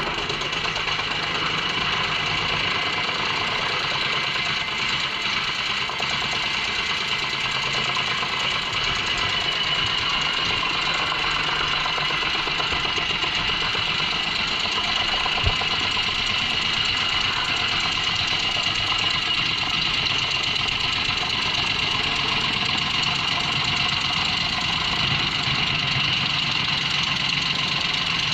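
JENZ HEM 593-R truck-mounted drum chipper running under load, chipping poplar logs, with the truck engine's rumble under a steady high whine.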